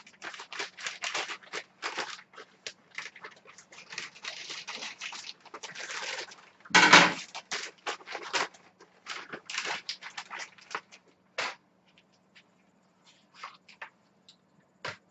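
Plastic packaging bag rustling and crinkling as a t-shirt and its enclosed card and sticker are pulled out, in irregular bursts with one loud crinkle about halfway through.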